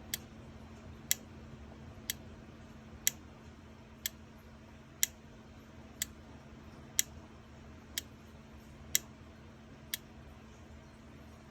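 Solenoids being pulsed one after another in a Williams System 11 pinball solenoid test, a sharp click about once a second that alternates louder and softer as the A side and C side coils fire in turn. The clicks stop about ten seconds in, and a steady low hum runs underneath.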